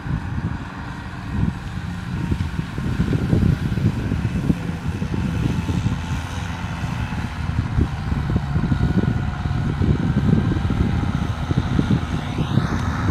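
Kubota M6040 SU tractor's diesel engine running steadily while ploughing a paddy field, with an uneven low rumble. A short rising whistle-like glide sounds near the end.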